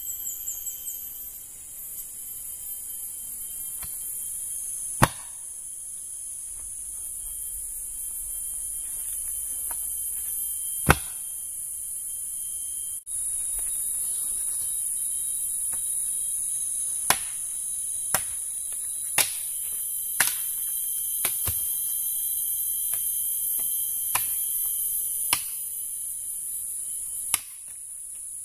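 Machete chopping wooden poles: sharp, separate blows, two loud ones well apart in the first half, then a quicker run of about one a second and a few more near the end. A steady high buzz of forest insects runs underneath.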